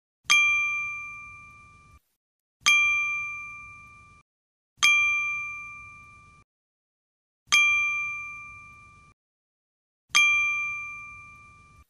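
A bell-like chime sound effect dinging five times, about every two and a half seconds. Each ding starts sharply, rings and fades for about a second and a half, then cuts off abruptly.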